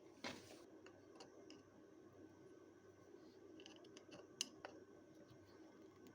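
Near silence with a few faint clicks and light knocks: a brief rustle just after the start, and the sharpest click about four and a half seconds in.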